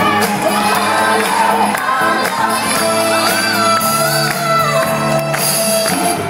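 Loud pop dance music with singing, with a crowd shouting over it.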